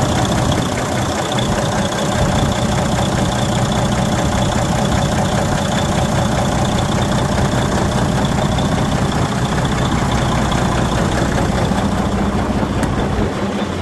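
Detroit Diesel DD15 inline-six truck diesel engine running steadily at idle, carrying the knocking noise that the owner reports 110,000 miles after an overhaul.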